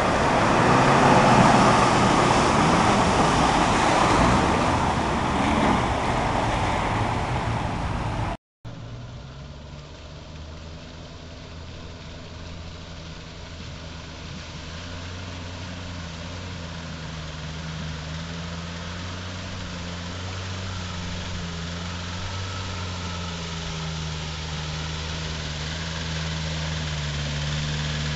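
Small Suzuki SJ-style 4x4 engines driving through deep muddy water. First an engine works hard with heavy sloshing and splashing. After a sudden cut, another engine runs at low, steady revs with a slowly wavering pitch, getting gradually louder as it wades closer.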